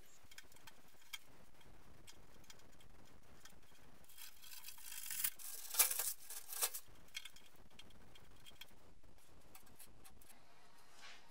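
Masking tape being peeled off a freshly painted fuel tank and crumpled up: a stretch of ripping and crackling in the middle, with faint handling sounds either side.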